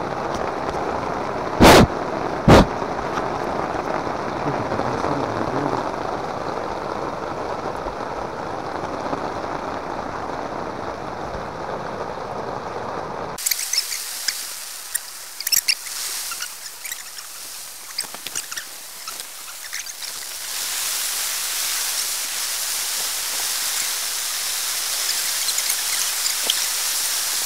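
Heavy rain falling steadily, with two sharp knocks about two seconds in. Around halfway it changes abruptly to a higher hiss of rain with scattered drips that grows louder near the end.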